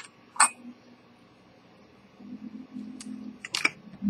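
Sharp clicks and taps of a steel pocket watch case being handled on a workbench, a fingernail at its rim: two right at the start and two more about three seconds in, with a faint low hum joining about two seconds in.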